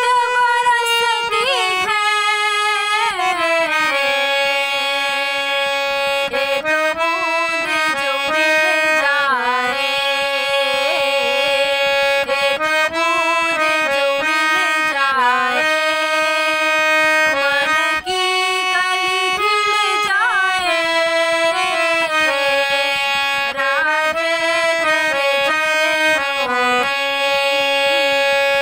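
A woman singing a Magahi song, accompanying herself on a harmonium whose sustained reedy notes move along under her voice.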